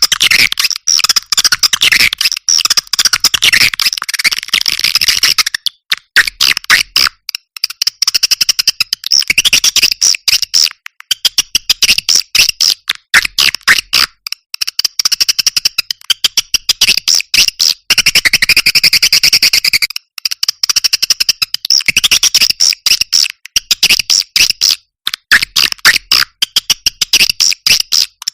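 Bird-lure recording of a small songbird: rapid, high-pitched chirping trills repeated in long runs with brief breaks.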